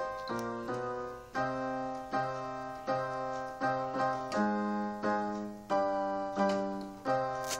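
Portable electronic keyboard played on a piano voice: chords struck about every 0.7 seconds, each fading before the next, with the bass note moving lower midway through.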